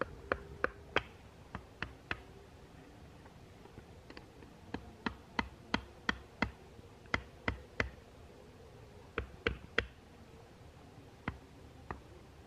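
A machete knocking on the top of a wooden stake to drive it into the ground: sharp knocks in quick runs of several strokes, about three a second, with short pauses between the runs.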